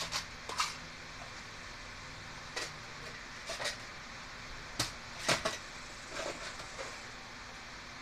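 Small hardware and plastic helmet parts being handled while refitting a welding helmet's headgear: irregular light clicks and rattles, about eight in all, with the loudest clatter a little past halfway, over a steady low hiss.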